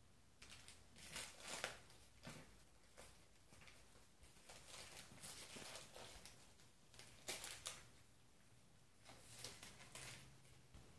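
Faint, irregular rustling and scuffing as a Persian cat rolls and squirms on a tile floor in spilled catnip, with a few louder scratchy bursts.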